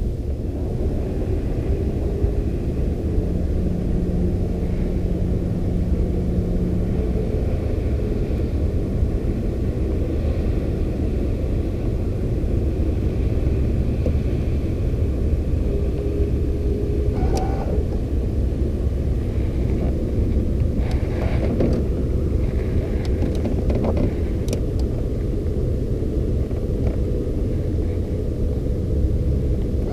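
Small boat motor running steadily: a continuous low rumble with a faint whine, with a few short clicks or knocks about two-thirds of the way through.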